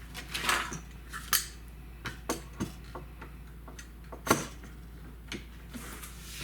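Irregular clicks and knocks of one-handed bar clamps and wooden workpieces being handled and set in place, with one sharper knock a little past four seconds in.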